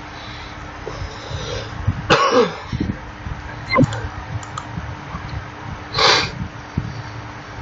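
A person coughing and clearing their throat. There are loud coughs about two seconds in and about six seconds in, with a shorter throat sound in between.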